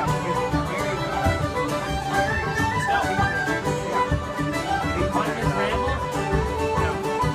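Irish traditional session tune played together on fiddles, a wooden flute, a bodhrán and plucked strings, with the fiddles and flute carrying the melody over a steady drum beat.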